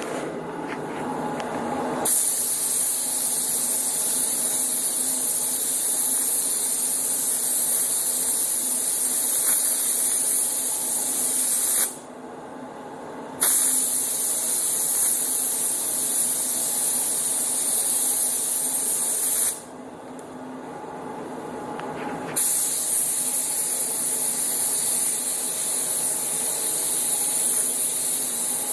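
Automotive paint spray gun hissing as it sprays two-stage metallic paint. The gun is triggered on three times: about 2 s in, again at about 13.5 s, and again at about 22.5 s, with short gaps between passes.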